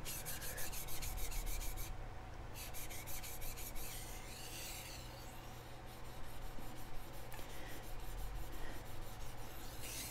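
A steel kitchen knife blade being stroked back and forth on a wet 800-grit Naniwa Chosera splash-and-go water stone: a repeated rasping scrape of steel on stone as the edge is ground, with a brief pause about two seconds in.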